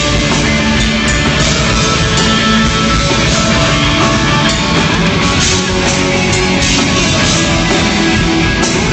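Rock band playing live at full volume, with electric guitars and drums, continuous through the whole stretch.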